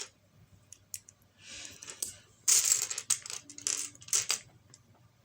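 Small plastic LEGO pieces clattering and clicking as they are handled and fitted together, in short spells about a second and a half and two and a half seconds in, with scattered single clicks between.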